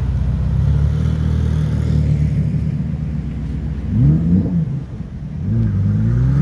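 Supercar engines idling with a deep, steady note. About four seconds in an engine blips its revs twice, then near the end one pulls away, its pitch rising as it accelerates.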